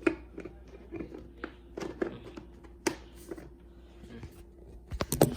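Light, irregular clicks and knocks of plastic being handled as an ultrasonic humidifier's water tank is fitted back onto its base, with a quick cluster of knocks near the end and a faint steady hum underneath.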